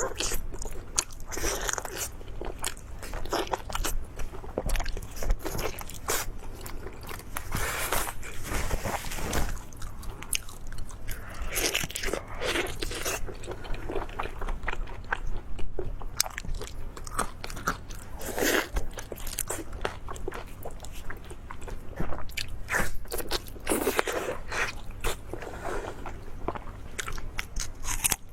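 A person biting and chewing crunchy food, with many short crunches, one after another.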